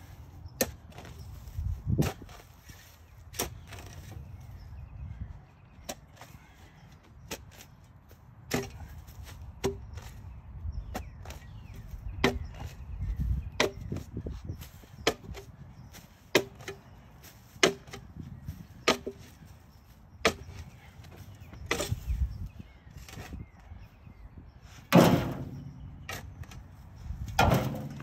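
Shovel blade chopping and cutting into soil and sod, in irregular strikes every second or two, with two louder, longer noises near the end.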